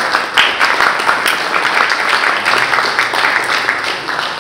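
An audience applauding: many people clapping together, dying down slowly toward the end.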